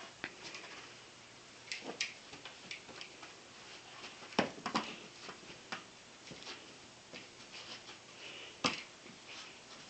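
Irregular clicks and knocks of a hollow clear plastic ball toy being nosed and bumped by a puppy, the loudest knocks a little before the middle and near the end.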